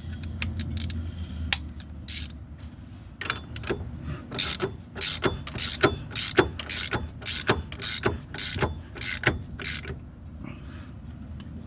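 Hand ratchet wrench clicking in a run of repeated strokes, about two a second, as a bolt is turned.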